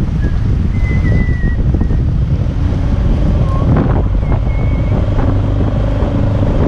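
Wind buffeting the microphone in a loud, steady low rumble, with faint thin whistling tones above it.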